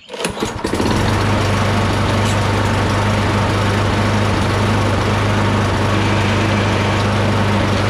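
Toro Recycler push mower's single-cylinder Tecumseh engine starting after being primed, catching within the first second and then running steadily.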